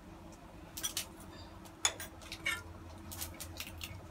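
Scattered light clinks and taps of kitchen utensils, about half a dozen, over a faint steady hum.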